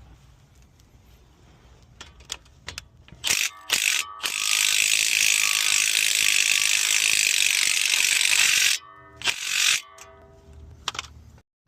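Ratchet wrench clicking as a stuck suspension bolt is worked loose. A few scattered clicks at first, then a long run of fast, loud ratcheting from about a third of the way in, stopping abruptly, followed by a few more clicks.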